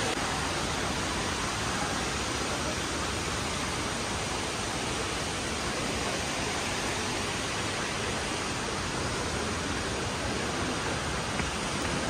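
Steady rushing noise of falling water from a waterfall, even and unbroken.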